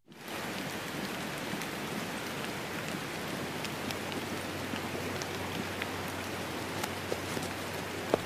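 Rain falling steadily, an even hiss with scattered sharper drips. It starts suddenly out of silence at the very beginning.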